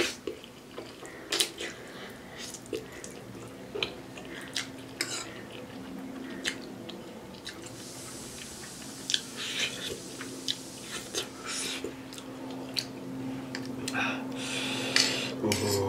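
A person slurping and chewing spicy instant ramen noodles, with scattered light clicks of a metal fork against the dish.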